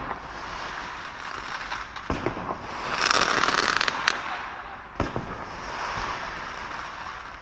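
Small firecrackers going off: a dense crackle of tiny explosions that swells about three seconds in, with a few sharper pops near two and five seconds.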